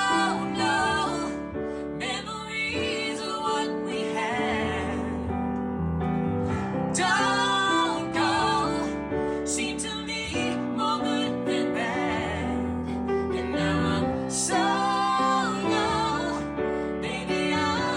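A singer with piano accompaniment, sung notes held with vibrato over steady piano chords.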